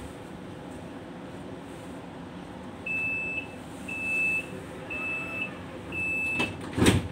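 Tram door-closing warning: four high beeps, each about half a second long and about a second apart. Near the end the sliding doors shut with a thud.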